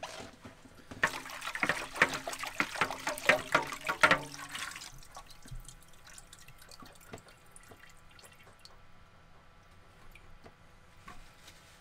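Diesel sloshing and splashing as a clear fuel-filter bowl is rinsed out, louder for the first few seconds. It then settles to a faint trickle and drips running off the bowl into a plastic container.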